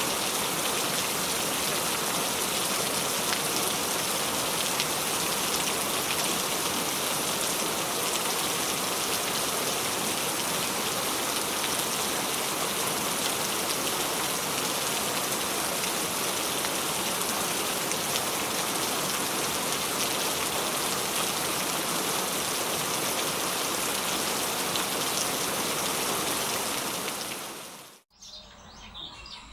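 Steady heavy rain falling on surfaces, an even hiss of drops without a break, fading out near the end.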